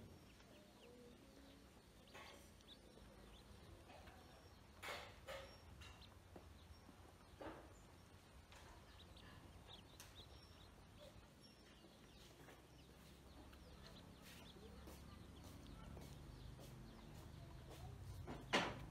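Ducklings in a shallow basin of water, faint, with a few scattered short peeps and small splashes; the loudest comes near the end.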